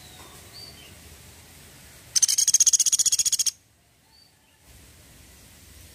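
Sunda pygmy woodpecker (pelatuk sampit) giving its loud, high-pitched rattling trill, a 'tembakan' burst of about fifteen quick notes lasting just over a second, about two seconds in. A couple of faint short chirps come before and after it.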